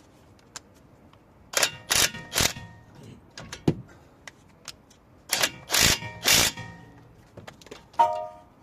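Metal tools knocking against metal parts during a front brake pad job, with a short metallic ring after each strike. There are two quick runs of three knocks, a few seconds apart, and a ringing clank near the end.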